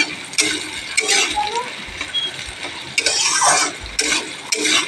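Sliced onions frying in hot mustard oil while a spatula stirs and scrapes them around the pan in a few separate strokes, the longest about three seconds in.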